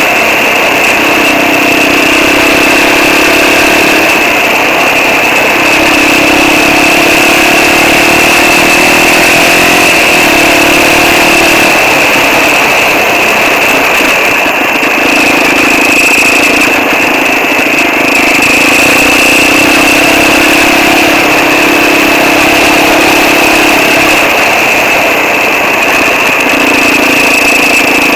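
Quad bike (ATV) engine running loud and continuous while riding over a dirt track, its note rising and falling every few seconds with the throttle.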